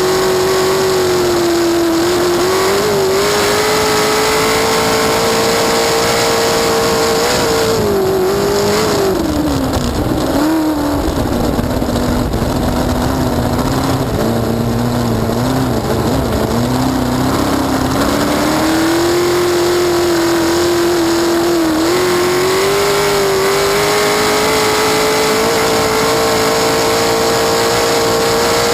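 Cracker box race boat's V8 engine running hard at high revs under a steady rush of noise; about eight seconds in the revs drop away and stay low for several seconds, then climb back up from about eighteen seconds in and hold high again.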